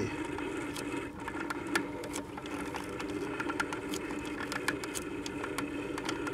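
Vintage Magnavox console turntable running, its motor and idler drive turning the platter with a steady hum and scattered light clicks and ticks. The mechanism is still dirty and not yet lubricated, which gives a crusty, grindy sound.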